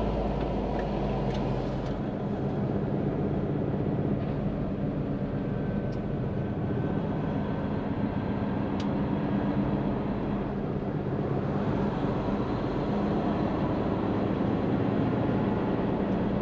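A Hino semi-truck tractor's diesel engine running steadily while the truck rolls along in slow traffic, with road and traffic noise coming into the cab through an open window.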